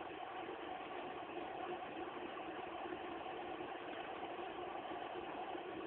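Steady mechanical hum with an even hiss and no distinct clicks or knocks.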